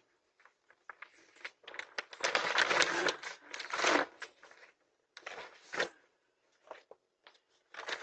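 Grocery bags rustling and crinkling as they are handled, in irregular bursts with scattered small clicks. The longest stretch of rustling comes about two to four seconds in, and a shorter one about five seconds in.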